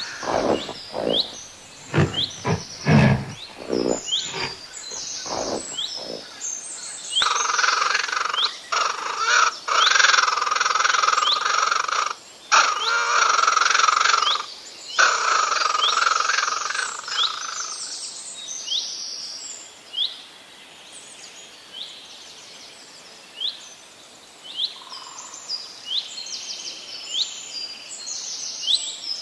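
Small birds chirping throughout in short, quickly falling chirps. In the first six seconds there is a run of low knocks, and from about seven to eighteen seconds a loud rasping buzz broken by a few short gaps.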